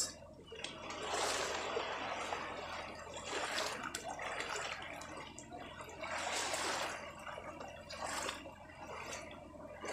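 Small sea waves lapping and sloshing against a moored boat's hull, in surges every two or three seconds.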